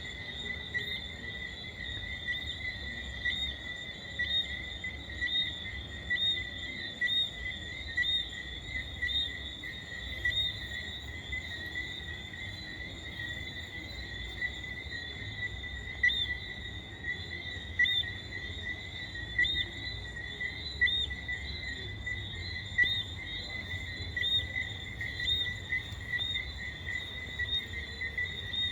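Night chorus of insects trilling steadily at two high pitches, with short high chirps repeating about once a second over it and a faint low rumble underneath.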